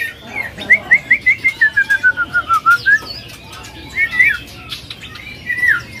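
Caged songbird singing: a quick run of short whistled notes, about five a second, sliding down in pitch and then rising again, followed by a few separate notes.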